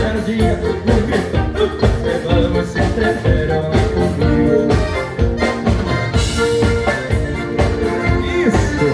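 Live gaúcho dance band playing vanera, with accordion over bass and drums and a steady, quick dance beat.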